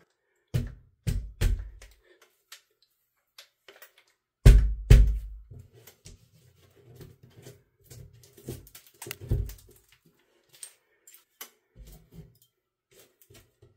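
Irregular knocks and thumps with a few sharp clicks as drywall patch pieces are handled and pushed up against a hole in a ceiling. The two loudest thumps come close together about four and a half seconds in.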